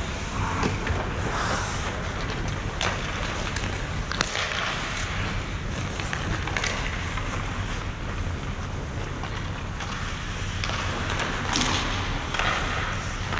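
Ice hockey practice: skate blades scraping the ice and sharp irregular clacks of sticks and pucks, over a steady low rumble.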